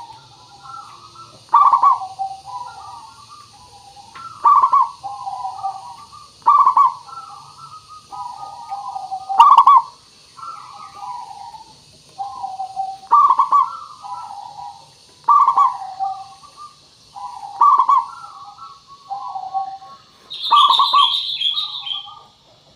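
Zebra dove (perkutut) cooing: a phrase of quick staccato coos repeated about every two seconds. A steady high hiss runs behind it, and a short burst of higher chirps from another bird comes near the end.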